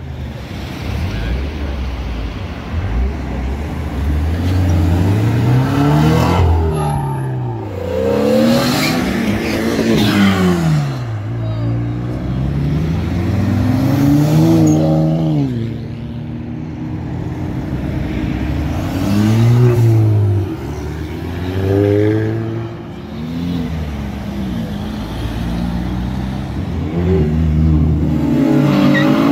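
Several cars pulling away and accelerating past one after another, each engine note rising as it revs and falling as it shifts gear or passes.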